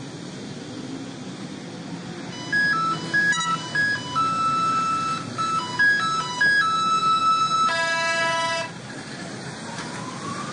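Low, steady traffic rumble with a short electronic chime melody over it: clean single tones stepping up and down, ending in a louder buzzy held note about eight seconds in. Near the end a rising whine starts.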